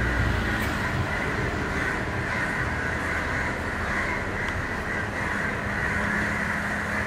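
Steady outdoor ambience dominated by a continuous high-pitched drone, with a low rumble in the first second.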